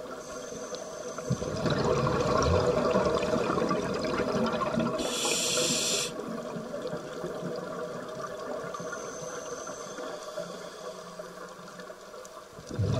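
Scuba divers breathing through regulators underwater: a long bubbling exhalation rush from about a second and a half in, a brief high hiss near the middle, then a quieter stretch of low bubbling.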